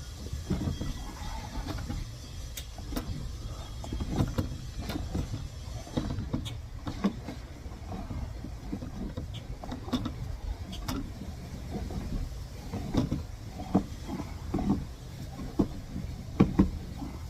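Irregular light clicks and taps over a steady low rumble.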